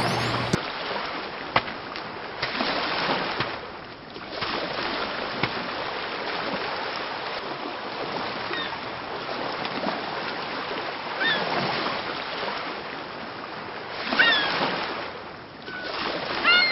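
Surf washing onto a sandy shore, the waves swelling and ebbing every few seconds. A few short bird calls sound over it in the second half.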